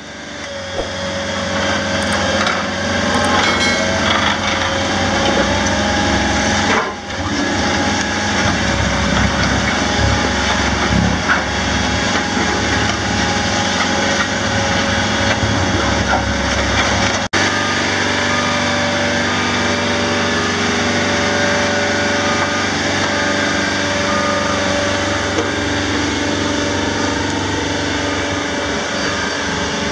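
Vibratory road roller's engine running steadily, with a dense steady mechanical drone. It is briefly interrupted about seven seconds in and again, sharply, about seventeen seconds in.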